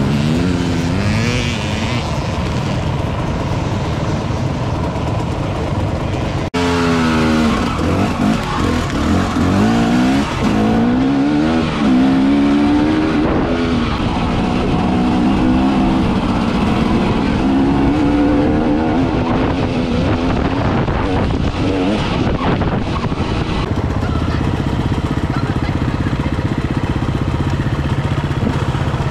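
Enduro motorcycle engines revving, the engine note rising and falling again and again as the throttle is worked and gears change. The sound cuts abruptly about six seconds in, then resumes with strong repeated climbs in pitch before settling to a steadier drone near the end.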